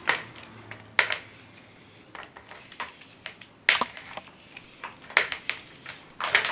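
Vacuum cleaner power cord handled and pulled through the hands to feel for a break in the live wire: soft rustling with irregular sharp clicks and taps as the cable slaps and knocks, roughly once a second, the loudest a little past the middle.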